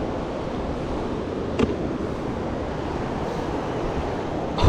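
Steady rushing of river water, with one short sound about a second and a half in.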